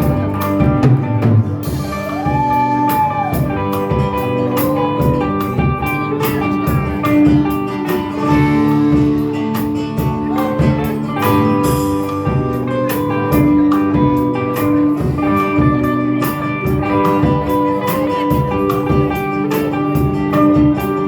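Live band playing an instrumental passage with guitar and drums, a steady beat and no vocals.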